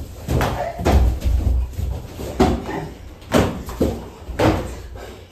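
Bangs and thuds of people jumping and scrambling on wooden furniture, about half a dozen sharp knocks in a few seconds.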